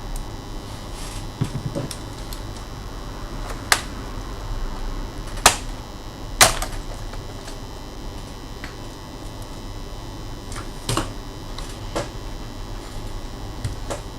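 Scattered sharp clicks and taps, about six of them at uneven intervals, over a steady background hiss: small plastic and metal laptop parts and tools being handled during disassembly.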